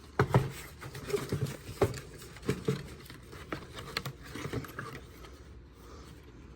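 Irregular clicks, taps and light scraping of hard plastic being handled, a few sharp knocks a second, thinning out near the end.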